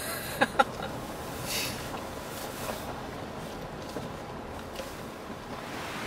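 Steady road and engine noise inside the cabin of a Jeep Grand Cherokee driving slowly along a snowy road, with two short sharp sounds about half a second in.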